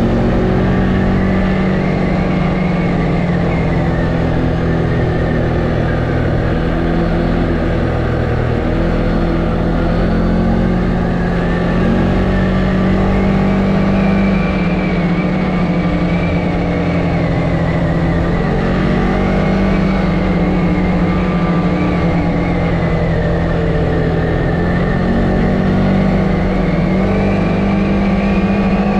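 CFMoto ATV engine running as the quad rides along, its pitch sinking and rising gently with the throttle.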